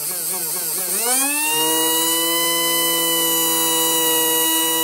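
Small brushed DC electric motor from a starter box, run straight off a 12-volt battery. For about the first second its pitch wavers, then it spins up to a steady high whine. It is running on more than its rated voltage, which the owner thinks is 7.2 volts.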